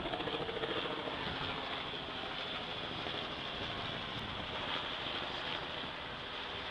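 Helicopter flying overhead: its rotor beats fast and evenly at first, and within about a second the beat fades into a steady drone.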